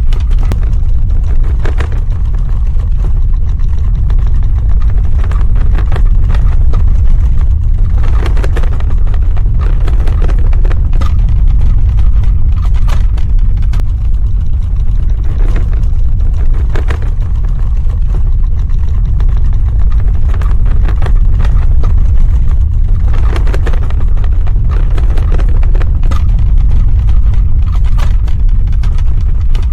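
Earthquake sound effect: a loud, continuous deep rumble with irregular bursts of rattling and crackling every few seconds.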